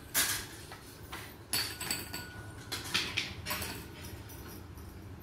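Children's toys being handled: small toy pots, bowls and cars clattering and knocking together and on the floor, in several short separate clatters.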